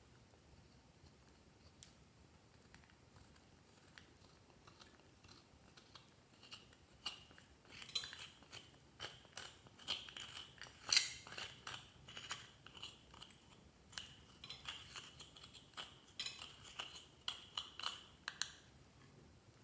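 Clear slime being worked by hand, giving off sticky crackles and small pops. The crackling is sparse at first and becomes dense about seven seconds in, then stops shortly before the end.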